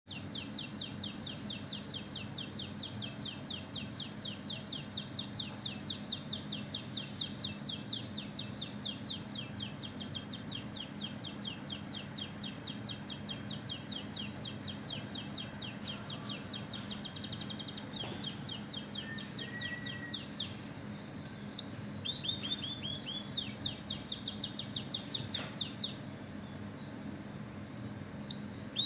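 Oriental magpie-robin (kacer) singing learned canary-style song: a long, fast run of rapidly repeated high notes. After about twenty seconds it breaks briefly, gives a few slurred notes, and takes up the rapid run again. A steady low hum runs underneath.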